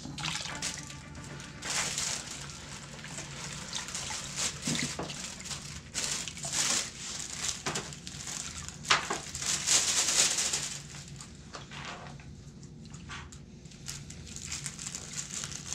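Plastic gold pan of gravelly paydirt being shaken and dipped in a tub of water: water sloshing and splashing with gravel swishing in the pan, in uneven surges, the busiest around the middle.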